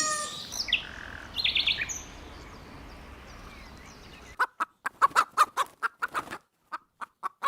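A few high bird chirps over outdoor background noise. About four seconds in, a clean cut to domestic fowl giving a quick series of short calls, about three or four a second.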